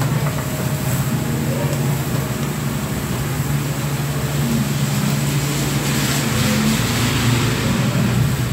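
Wire whisk beating chocolate cake batter in a stainless steel bowl, a soft scraping and slapping that grows busier in the second half, over a steady low machine hum.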